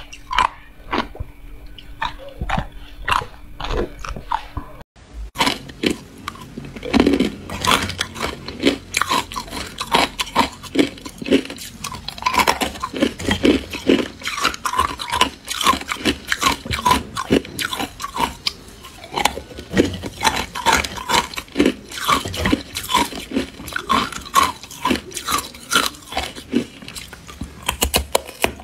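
Matcha-coated ice being bitten and crunched between the teeth: a dense run of sharp, crackling crunches, with a brief break about five seconds in.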